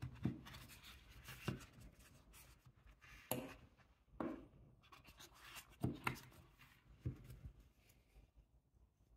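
Steel nail clippers and their metal tin case being handled on a tabletop: about seven light knocks and clicks as the clippers are lifted out of the case and set down, with faint rubbing and scraping between them.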